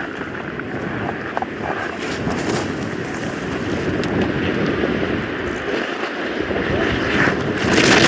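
Downhill race skis hissing and scraping over hard, icy snow at high speed, with wind rush; it grows louder near the end.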